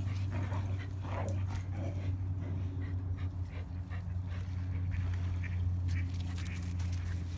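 Dog whining and yelping in short, wavering calls, busiest in the first two seconds, over a steady low hum.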